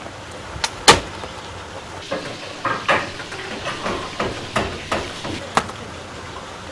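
Scattered sharp knocks and clatters over a steady background noise; the loudest knock comes about a second in, with several more, irregularly spaced, through the rest.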